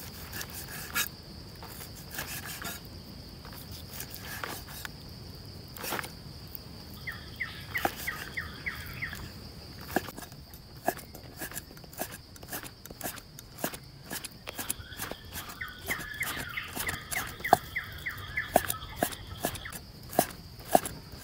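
A cleaver slicing raw beef on a wooden chopping board: irregular sharp knocks of the blade on the wood, coming faster and harder in the second half. A steady high insect drone runs underneath, and a rapid chirping call sounds twice, around the middle and again later.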